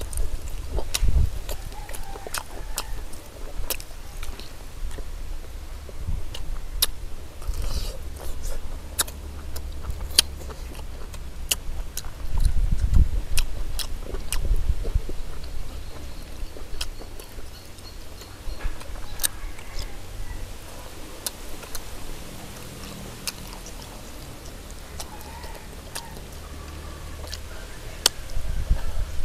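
People eating: chewing, with scattered sharp clicks and a few low thumps.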